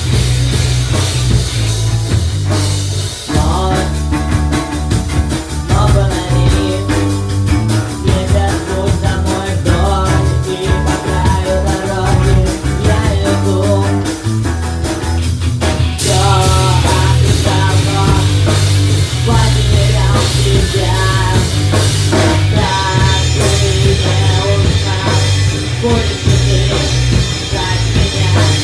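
Rock music: a band with drum kit and bass playing steadily, with a melodic lead line coming in about three and a half seconds in.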